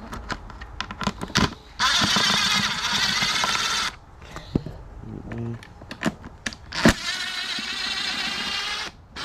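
A handheld power driver runs twice, about two seconds each time, backing screws out of the ATV's airbox cover. Small clicks and knocks of handling come between the runs.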